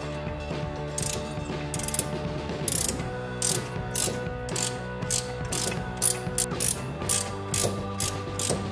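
Ratchet wrench with an 18mm socket clicking in repeated strokes as it works a brake caliper bolt, over background music with sustained chords.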